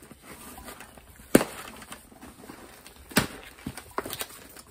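A mail-order package being opened and its contents handled: rustling with a few sharp knocks and taps, the two loudest about a second and a half in and about three seconds in, then a quick cluster of smaller ones near the end.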